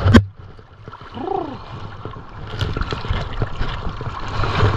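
Feet sloshing and stepping through shallow river water, with many small knocks and splashes. A sharp knock at the very start is the loudest sound, and a short rising-and-falling hum comes about a second in.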